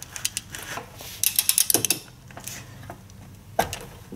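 Ratchet head of a digital torque wrench clicking in short bursts as a brake caliper bracket bolt is pulled up toward its 88 ft-lb torque setting, with one louder knock near the end.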